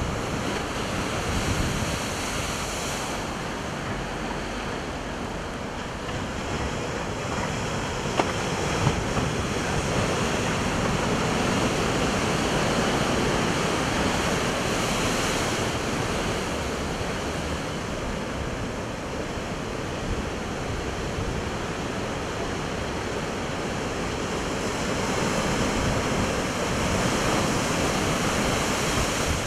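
Large ocean waves breaking on the rocks below a seawall: a continuous rushing wash of surf that swells louder and eases off as each set crashes in.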